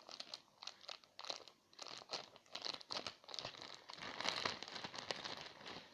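Thin plastic packaging crinkling and crackling irregularly as a squishy toy in its bag is handled, a little louder in the second half.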